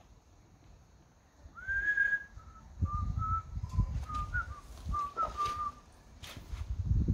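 A person whistling a tune in short notes that step up and down in pitch, starting about one and a half seconds in. Dull low knocks and a few clicks come underneath.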